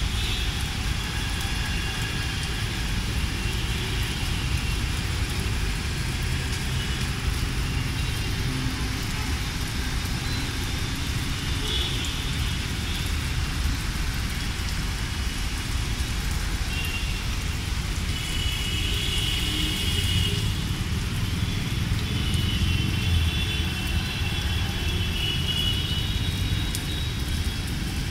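Steady rainfall with wind, a constant hiss and patter over a low, uneven rumble of wind on the microphone.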